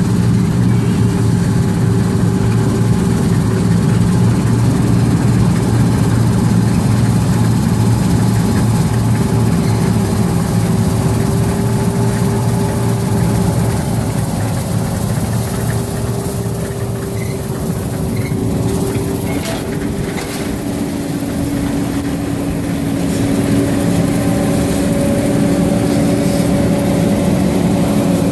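Heavy diesel engine of farm field machinery running steadily under load, a dense low rumble with a steady hum on top; about two-thirds of the way through its note shifts lower and it dips slightly in loudness before coming back up.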